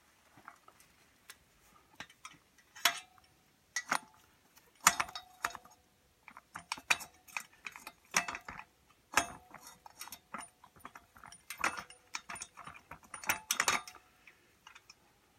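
Irregular metallic clicks and clanks, some ringing briefly, of steel pins and brackets being pulled and reset to set a cultivator shovel's working depth.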